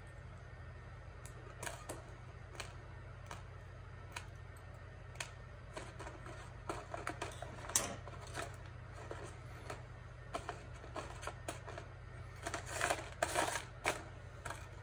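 Irregular small metallic clicks and ticks of thin armature wire being handled, twisted and trimmed with wire cutters, with a close cluster of clicks near the end.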